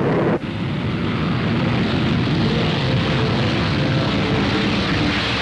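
V-2 rocket motor running at liftoff: a loud, steady rush of exhaust noise that starts suddenly.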